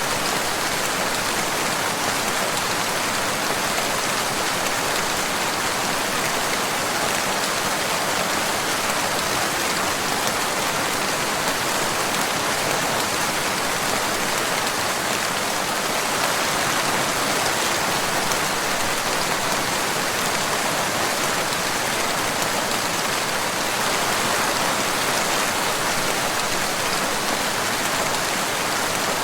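Steady rain falling: an even, unbroken hiss with no thunder and no single drops standing out.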